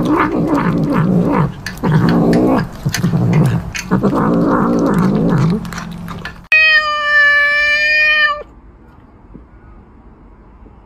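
A cat yowling and growling in long, wavering calls while it eats, in three or four stretches over the first five or six seconds. About six and a half seconds in, a steady buzzy tone holds for about two seconds and then stops.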